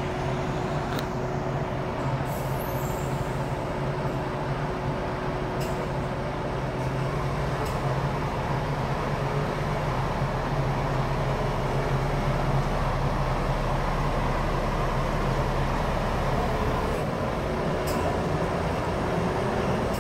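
A coach's diesel engine running steadily at low revs as the coach reverses out of its bay, a little louder past the middle, with a few faint clicks.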